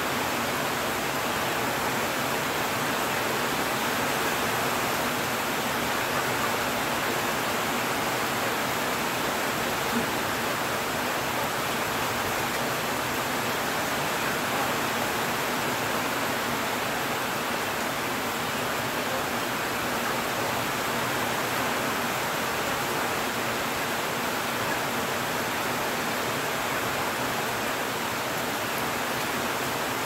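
Heavy rain falling steadily on dense foliage, an even, unbroken hiss, with one brief tap about ten seconds in.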